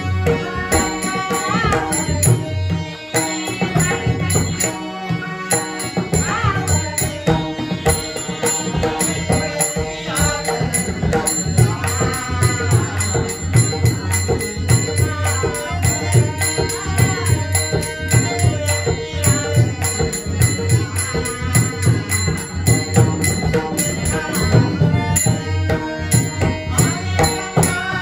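Marathi devotional bhajan: a man singing an abhang over steady pakhawaj drumming, with held tones sustained beneath the voice.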